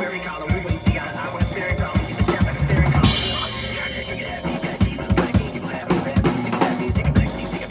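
Drum kit played live over a music backing track: quick runs of bass drum and snare strokes, with a cymbal crash about three seconds in.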